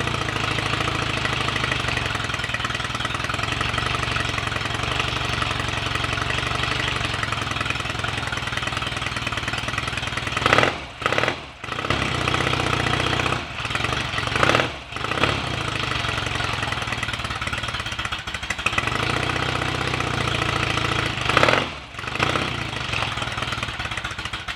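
Royal Enfield Interceptor Series 2 750cc parallel-twin engine running on its first start after a rebuild, with the revs dipping and picking up several times in the second half. Its ignition timing and tick-over are not yet set.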